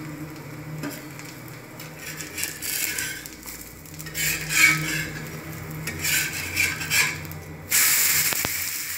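Chila batter frying in mustard oil on a hot iron tawa, a low sizzle throughout. From about four seconds in a metal spatula scrapes against the tawa in several short strokes, and near the end the sizzle jumps suddenly louder as the chila is flipped onto the oiled pan and pressed down.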